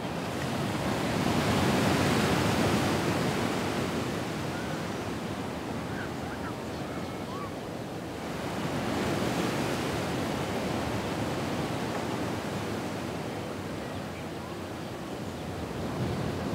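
Ocean waves washing in, the surf swelling up twice and falling back.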